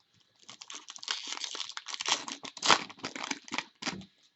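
Crinkling of a hockey card pack's foil or plastic wrapper as it is handled and the cards are pulled out. It is a dense, irregular crackle with its loudest crunch a little before three seconds in, dying away just before the end.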